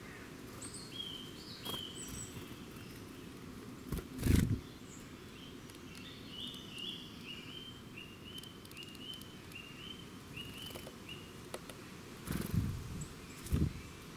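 Wild birdsong: a songbird gives short chirps, then a run of about a dozen similar notes in quick succession. Louder dull thumps come about four seconds in and twice near the end, over a steady low background rumble.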